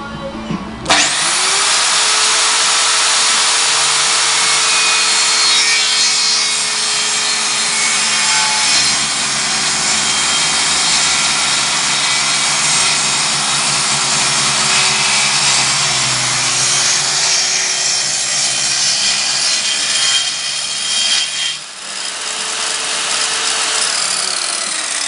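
Electric power saw cutting through timber: the motor's steady whine under load over the dense noise of the cut, starting abruptly about a second in, with a brief break near the end.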